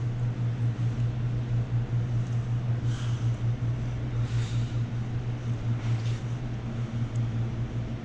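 A steady low hum with a slight pulsing, and a few faint soft swishes about three, four and a half, and six seconds in.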